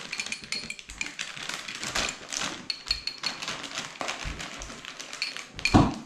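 Metal fork clinking and tapping against a glass jar of pickled jalapeños as slices are fished out and shaken onto the nachos, several of the clinks ringing briefly. A louder knock comes near the end.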